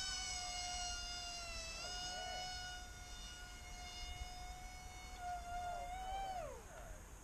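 Faint, high whine of an FPV flying wing's small brushless motor and propeller running at high throttle after a hand launch. The pitch holds steady, dips briefly about two seconds in, then falls away at about six and a half seconds as the throttle comes off.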